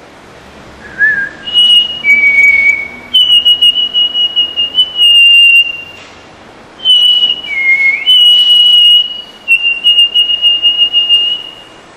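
A person whistling an imitation of the mountain whistler's (rufous-throated solitaire's) melodic song: long held high notes, some steady and some quavering, stepping between two pitches, in two runs of phrases with a short break about six seconds in.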